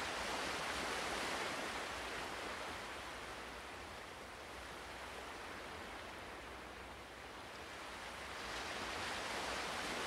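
Ocean surf washing onto the shore: a steady hiss that eases off in the middle and builds again near the end.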